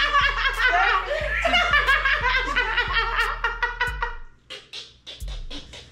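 Several women laughing hard together, loud and unbroken for about four seconds, then dying down to scattered softer chuckles.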